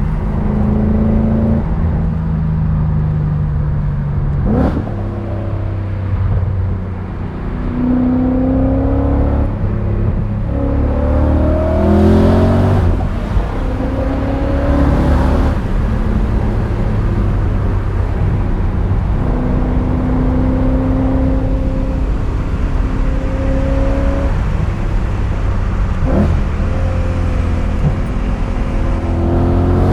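BMW E39 M5's 4.9-litre V8 driven hard: the engine note climbs under acceleration and holds steady between pulls, with several short, sharp rises in revs.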